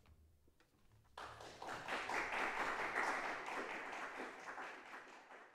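Audience applause, starting suddenly about a second in as the band's last low note dies away, swelling and then fading near the end.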